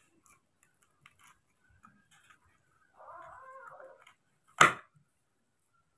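A baby macaque gives one cry about a second long, rising and falling, about three seconds in, over faint clicks of a knife working at dragon fruit skin. A single sharp knock follows just after the cry.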